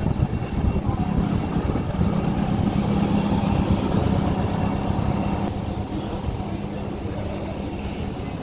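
Historic train's locomotive running: a steady low rumble with a steady hum, growing a little quieter about five and a half seconds in.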